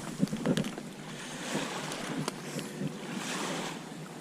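Small waves washing and splashing against a plastic kayak hull, swelling and fading several times, with a few light knocks from gear on the boat in the first second.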